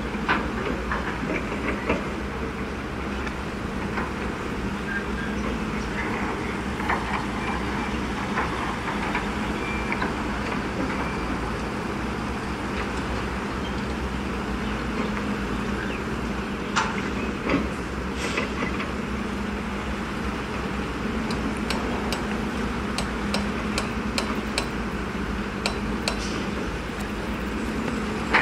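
Diesel dump truck engine running steadily while the truck tips its load of dirt, with scattered sharp knocks and clanks, more frequent near the end.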